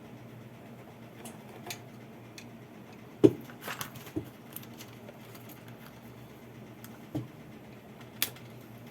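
Scattered clicks, taps and knocks of hands and tools working an amplifier circuit board loose from its chassis, with the sharpest knock about three seconds in, over a faint steady low hum.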